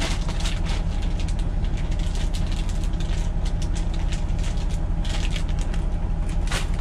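Steady low rumble of the semi truck's engine idling, with bursts of crinkling and crackling as plastic packaging is handled, mostly in the first second or so and again near the end.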